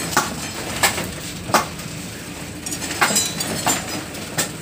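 Hammer blows: about six sharp, irregularly spaced knocks.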